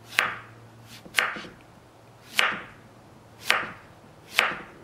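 Kitchen knife slicing zucchini on a wooden cutting board: five sharp knocks as the blade cuts through and strikes the board, about one a second.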